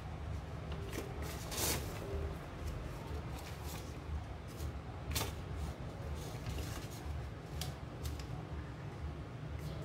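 A sheet of origami paper being handled and creased by hand: scattered rustles and crackles, with two sharper crackles about a second and a half and five seconds in, over a steady low hum.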